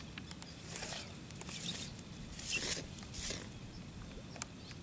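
Four short rustling swishes about a second apart, with a few light ticks and one sharp click near the end.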